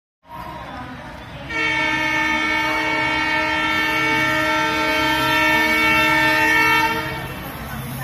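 WDP-4D diesel locomotive's air horn sounding one long, loud blast of several tones at once as the train approaches. The horn starts about a second and a half in and stops about a second before the end, over a low rumble.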